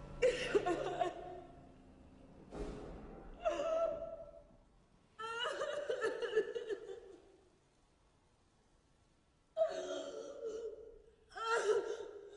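A person's wordless vocal outbursts in about five short bouts, separated by pauses, with a near-silent gap before the last two.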